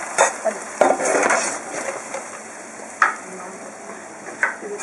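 Fruit rings sizzling in a frying pan of bubbling syrup, with a wooden spoon stirring and knocking against the pan: a run of clattering about a second in and one sharp knock about three seconds in.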